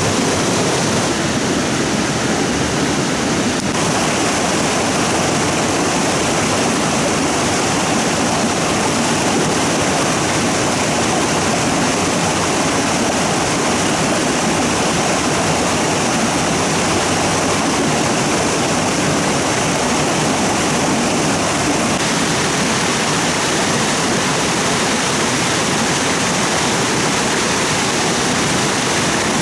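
Stream water rushing in a steady, loud wash.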